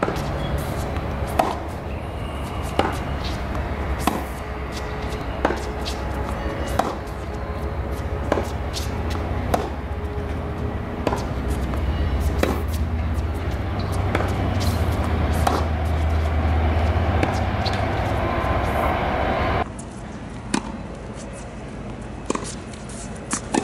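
Tennis balls struck hard by racquets in a baseline rally: sharp pops about every second and a half, with fainter ball bounces between them, over a steady low rumble.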